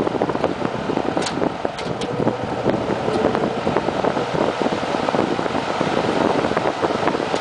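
GE F17W13 box fan running, its air stream rushing against the microphone in a steady, fluttering whoosh. A few faint ticks sound about a second and two seconds in.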